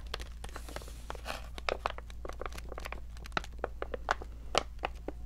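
Close handling of product packaging: irregular crinkling with sharp taps and clicks, several a second.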